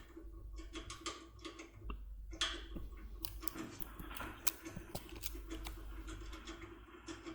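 Faint, irregular metallic clicks and ticks of a Topolino decoder pick being worked lightly inside a TESA T80 lock cylinder.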